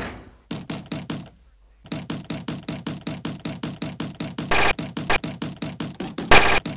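A short knock-like sound sample stuttered in a rapid loop, about six hits a second, each with a quick falling pitch. The loop drops out briefly about a second in, then resumes, and a few loud bursts of noise cut in near the end.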